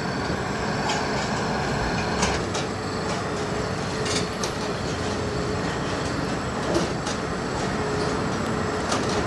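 Track laying machine running as it moves along the new rails: a steady mechanical rumble with a faint steady whine, and a few sharp clicks or knocks.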